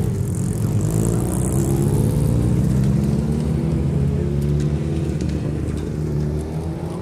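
Racing sidecar outfits' engines running at low revs as the outfits pass, the pitch wavering up and down.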